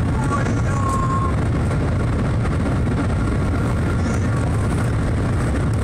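Steady interior noise of the Shanghai Maglev train running at speed: a loud low rumble with an even rush of air over it.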